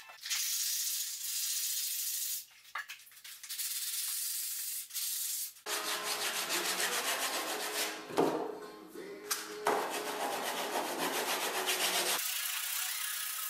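Hand sanding with a sanding sponge at the foot of a skirting board: scratchy rubbing, turning about halfway through into fuller, fast back-and-forth strokes.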